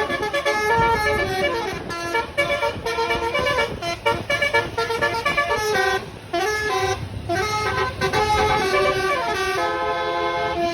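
Bus 'telolet' basuri horn playing a melody: several horn tones stepping and sliding between pitches, nearly without pause, with short breaks about six and seven seconds in.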